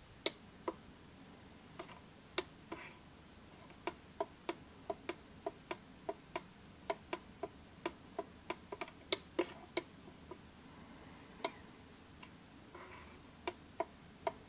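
Pushbuttons on a D30 digital valve positioner's keypad clicking as its menu is stepped through: a few separate clicks, then a quick run of about three clicks a second through the middle, then a few more near the end.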